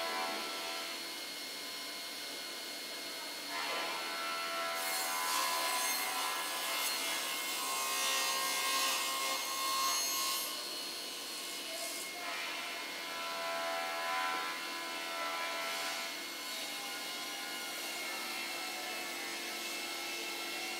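Martin sliding-table panel saw running with a steady whine. Its blade cuts through a wooden panel fed on the sliding table, loudest from about five to ten seconds in, with a lighter stretch of cutting a little later.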